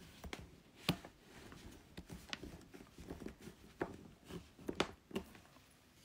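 Scattered light clicks and knocks, about five spread unevenly, from handling as the camera is nudged over and repositioned.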